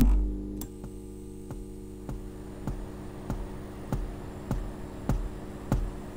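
Opening soundtrack: a sharp click with a thump as the lamp comes on, then a steady electric-sounding hum under a slow, even ticking beat, one soft tick with a low thump about every 0.6 seconds.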